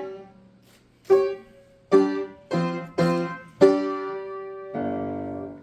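Piano played slowly and haltingly: after a short pause, chords are struck one at a time at uneven spacing, and a final chord is held near the end.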